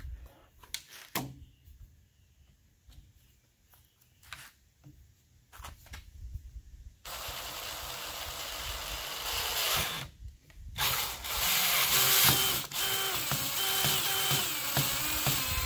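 Cordless drill boring a hole through PVC pipe with a twist bit, starting abruptly about seven seconds in, pausing briefly around ten seconds, then running again with a steady motor whine. Before the drilling, a few scattered clicks and knocks.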